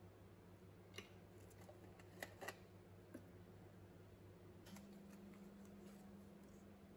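Near silence over a steady low hum, with a few faint light clicks as small plastic creamer and syrup portion cups are picked out of metal trays and set on a counter.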